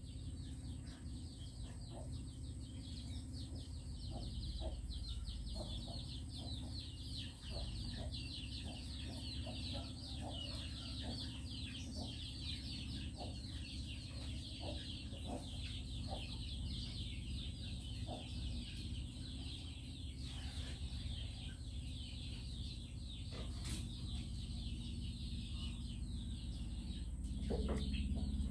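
Backyard ambience: a continuous fast, high chirring, with short low clucks, likely from chickens, scattered about once a second and a steady low hum underneath.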